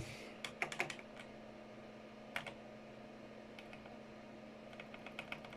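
Keys on a mechanical gaming keyboard with red linear switches being pressed: a few light clacks in the first second, a single one about two and a half seconds in, and a quick run of presses near the end.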